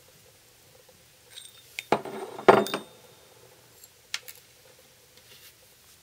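Small metal knife parts clinking and clattering together as they are handled, with a brief metallic ring. A short burst of clinks comes about two seconds in, then a single sharp click a little past the four-second mark.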